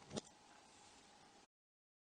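Near silence: one short faint click just after the start over faint hiss, then the sound drops out to dead silence about one and a half seconds in.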